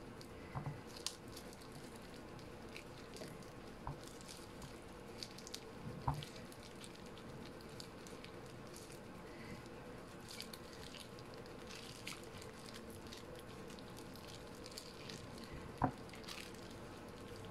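Soft handling sounds of plastic-gloved hands pressing and turning a whole fish in flour on a ceramic plate, with a few light knocks on the plate, the sharpest about six seconds in and near the end. A faint steady hum underneath.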